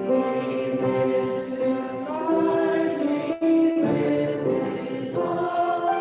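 A choir singing a slow hymn, several voices holding long notes together.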